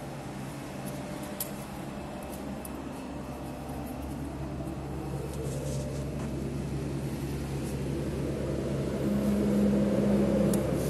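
Steady low hum of machinery running in a workshop, with a few faint ticks and taps; a slightly higher steady tone joins for a second and a half near the end.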